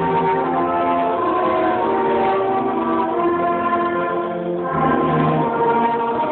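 Brass band of cornets and trombones playing held chords, with a short break about four and a half seconds in before the next chord.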